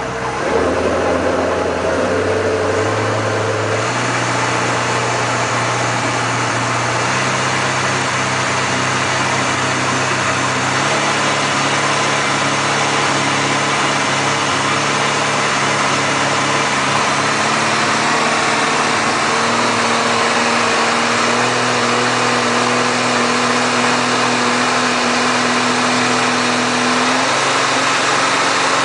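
Motorboat engine running under way, its pitch stepping up several times as the throttle is opened, easing slightly near the end, over a steady rushing hiss.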